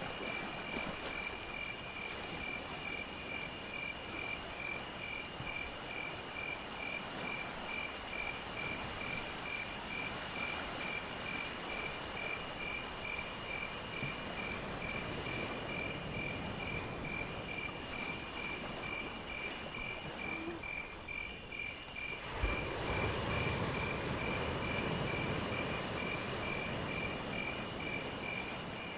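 Night insects calling: a cricket chirping steadily about twice a second under a high buzzing insect chorus that comes in repeated phrases. About three-quarters of the way through, the chirping stops and a broad rushing noise with a low rumble rises under the buzzing.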